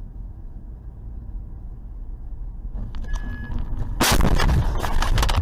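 Dash-cam car collision: a steady low rumble of engine and road noise inside the car, a brief high tone about three seconds in, then about four seconds in a sudden loud crash of impact noise that goes on with further knocks.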